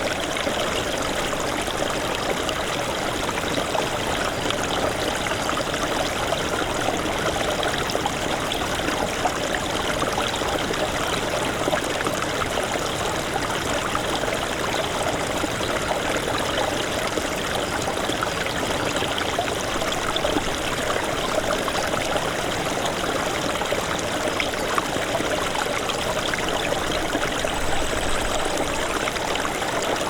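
Small snowmelt stream running over stones, a steady babbling rush with many small splashes and trickles.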